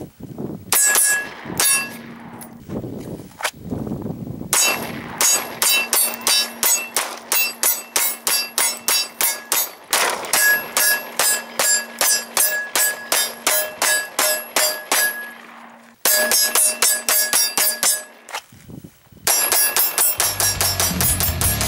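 9mm Glock pistol fired in quick strings at a hanging AR500 steel plate, each shot followed by the plate's ringing clang. Several strings of about two or three shots a second with short pauses between them; rock music comes in near the end.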